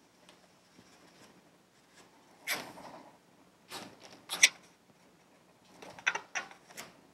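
Red Sharpie marker and fingers rubbing and squeaking on an inflated latex balloon as the chest symbol is coloured in: a handful of short scratchy strokes, the sharpest a little past the middle.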